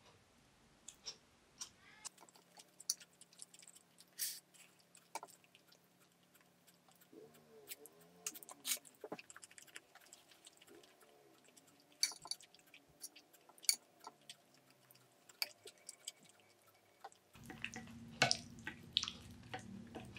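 Quiet, scattered light clicks and taps, a few every second or two, then soft keyboard music comes in near the end.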